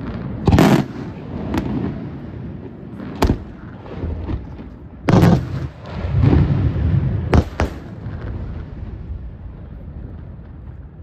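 Aerial firework shells bursting overhead: a series of sharp bangs over a rolling low rumble. The loudest bangs come about half a second in and about five seconds in, with two quick bangs close together a little later, and the display dies down near the end.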